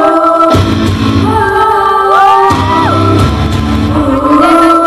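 Loud live concert music from the stage's sound system, heard from the crowd: held chords over a deep bass that cuts out briefly and returns twice, with a sliding note that rises about two seconds in.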